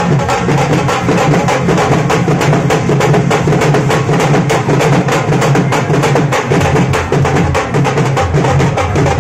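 Dhol drums of a wedding band beaten in a fast, steady rhythm, with other band music over it.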